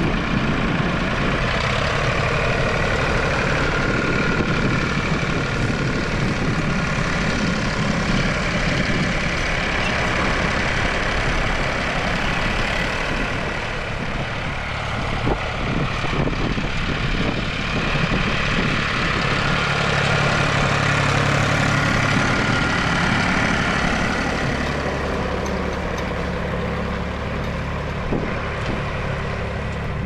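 Nuffield tractor's diesel engine running steadily under load while pulling a plough, its level dipping slightly now and then.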